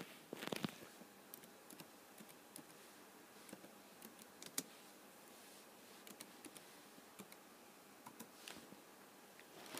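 Faint, irregular keystrokes on a computer keyboard as a short chat command is typed, single clicks with pauses between them and a small flurry about half a second in.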